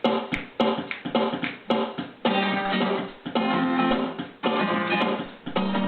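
Guitar playing the instrumental introduction of a song: strummed chords, short and choppy for the first two seconds, then longer ringing chords changing about once a second.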